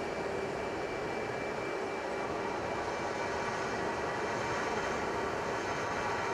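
Jet aircraft engine running steadily: a wide rush of noise with a few steady whining tones on top, unchanging throughout.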